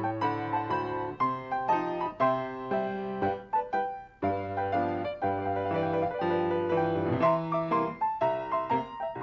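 Piano music with quick successive notes and chords, pausing briefly about four seconds in.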